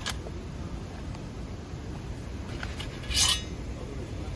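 A few light clicks, then one louder, ringing metallic clink about three seconds in, over a steady low outdoor rumble.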